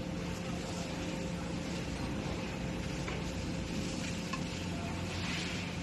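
Steady background hum with an even hiss, and a couple of faint clicks about three and four seconds in.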